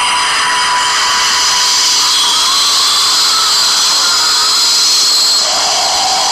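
Loud, shrill, steady whining noise made of several high tones, with a wavering tone in the middle.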